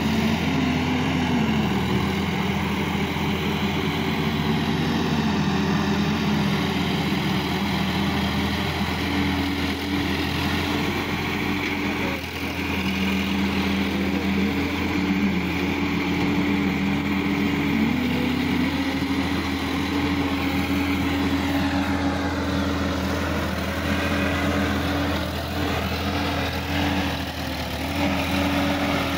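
Sonalika DI-50 RX tractor's diesel engine running under load as it works through deep paddy-field mud, its engine speed rising and falling several times.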